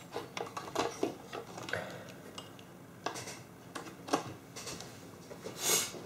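Banana-plug test leads being handled and laid down on a silicone work mat: scattered light clicks and taps, with a brief rustle near the end.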